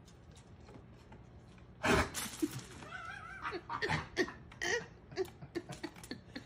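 A sudden loud noise about two seconds in, followed by a person laughing in short repeated bursts.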